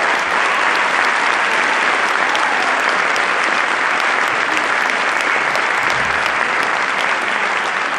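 Large audience applauding steadily: dense, even clapping with no music.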